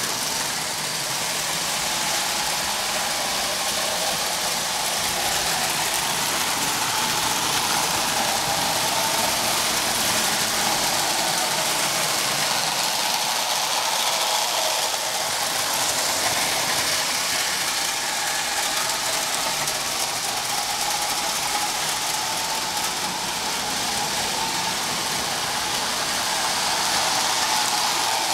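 Postwar O-gauge tinplate toy trains running on three-rail track: a steady whir of the electric motors with the running noise of metal wheels on the rails.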